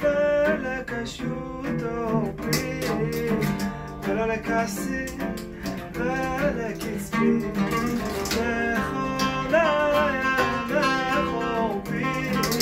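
Oud, acoustic guitar and darbuka playing together: an ornamented oud melody with slides over a strummed guitar and steady drum strokes, an instrumental passage between sung lines.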